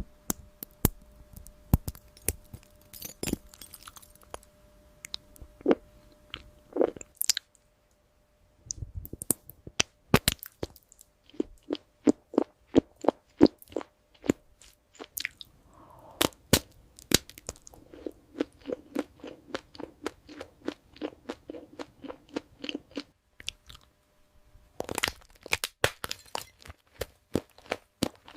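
Close-miked ASMR eating sounds: crisp crunching, biting and chewing of crunchy desserts, sharp crunches coming in quick runs with a short pause about a quarter of the way in.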